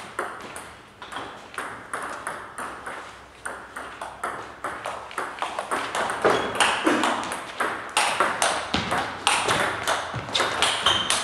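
Table tennis ball clicking sharply off bats and the table, irregular knocks all through, coming thicker and louder during a rally in the second half.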